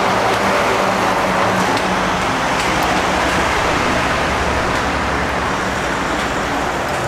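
Road traffic from a busy highway: steady motor-vehicle noise with an engine running close by, swelling in the middle as a vehicle passes.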